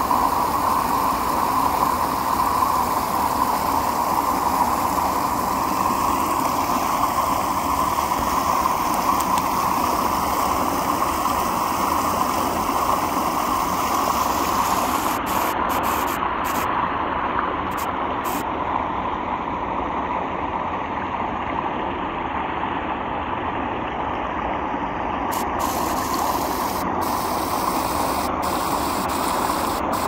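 High pond water pouring steadily over the rim and down into a round drain pipe, a constant rushing splash of falling water.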